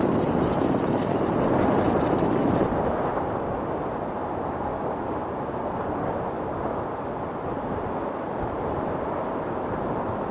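Steady wind rumble on the microphone, stronger for the first few seconds and then easing to a lower, even level.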